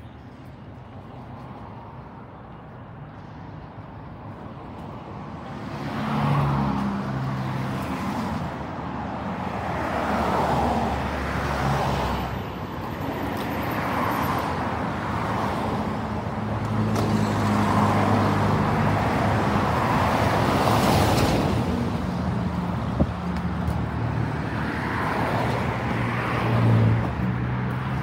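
Road traffic on a bridge: cars driving past one after another on the carriageway just beyond the walkway railing. It is quiet for about the first six seconds, then the tyre and engine noise swells and fades with each passing car every couple of seconds.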